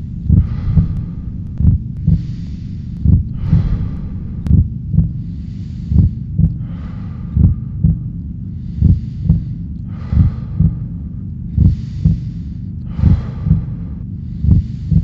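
Slow heartbeat: paired low thumps about every one and a half seconds over a steady low drone, with heavy breathing, one long breath drawn between most of the beats.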